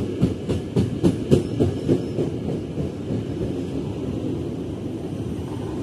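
Electric commuter train passing close by. Its steel wheels clatter over rail joints in a quick run of clicks, about three or four a second, for the first two seconds, then settle into a steady rumble.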